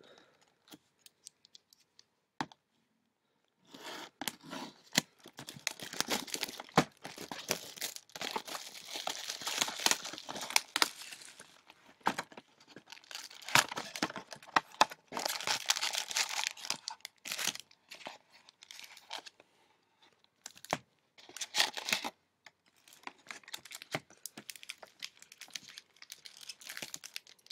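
Plastic wrapping on a sealed box of trading cards being torn and crinkled off. It starts a few seconds in, with two long stretches of crackling followed by shorter bursts.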